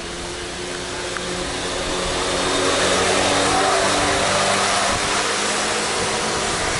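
Go-kart engine running at speed, growing louder over the first few seconds as the kart comes near and passes close by.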